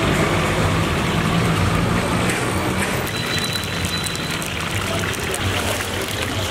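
Hot oil sizzling in a large iron wok as lumps of mixture are deep-fried, with fine crackles and spatters from about two seconds in, and the metal skimmer stirring through the oil.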